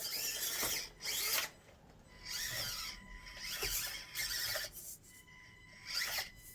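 Electric motor and gear drivetrain of an Axial Deadbolt RC crawler truck whining in about five short bursts of throttle, the pitch wavering up and down with speed, with quieter pauses in between.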